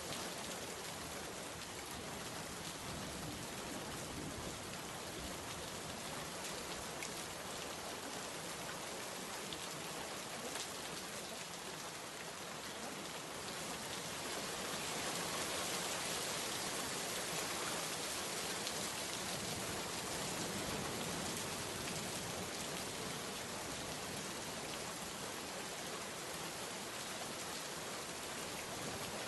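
Steady rain falling, an even hiss of drops that swells a little louder about halfway through and then eases back.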